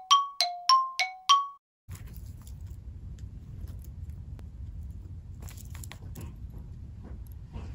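Intro jingle of bright chime notes alternating between two pitches, about three a second, stopping about a second and a half in. Then a low steady hum with faint scattered rustles and clicks as a guinea pig nuzzles and nibbles at a hanging seagrass and wood chew toy.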